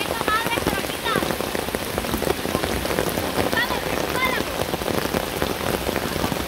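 Steady rain pattering down, a dense hiss of many drops. A few short high chirps come through near the start and again around the middle.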